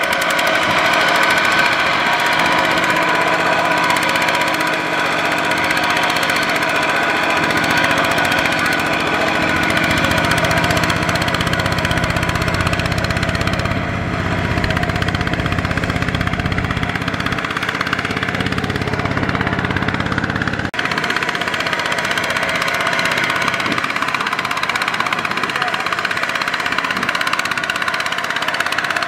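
Kubota RT140 walking tractor's single-cylinder diesel engine running steadily while pulling a loaded rice trailer through deep mud. The sound changes abruptly about two-thirds of the way through, where the deeper rumble drops away.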